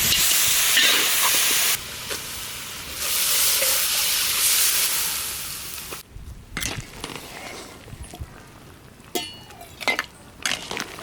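Food frying with a loud sizzle in a hot pan, broken briefly about two seconds in and stopping abruptly about six seconds in. After that it is quieter, with scattered clicks and knocks.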